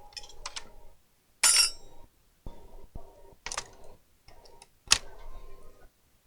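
Laptop parts and small tools being handled: a series of light clicks, knocks and rattles of plastic and metal, with three sharper clicks about a second and a half in, halfway through, and near the end.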